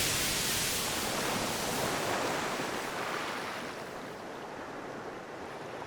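An even rushing noise, like surf, slowly fading out.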